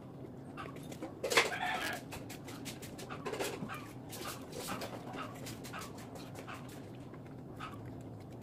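Close eating sounds: irregular wet clicks and smacks of chewing on food eaten by hand, with one louder, brief sound about a second and a half in.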